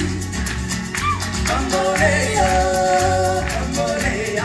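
Latin American-style song performed live on stage: singing over a steady bass beat, with one note held for about a second near the middle.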